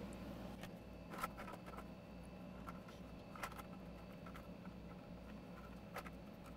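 Faint, scattered clicks and light knocks from a laptop-style motherboard being handled and fitted back into a Dell Inspiron 24-5459 all-in-one computer's chassis, the clearest about a second in, about three and a half seconds in and near the end, over a low steady hum.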